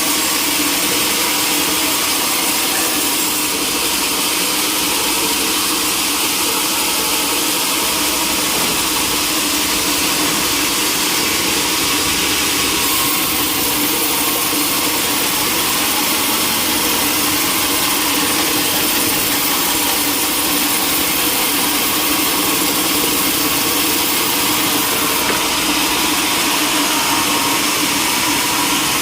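Sawmill machinery running steadily: an engine-driven mill with a loud, even saw hiss and hum. The tone shifts slightly a few times.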